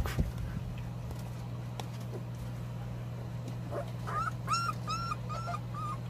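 Young puppy whimpering: a quick run of short, high-pitched squeaky cries, about three or four a second, starting about four seconds in, over a steady low hum.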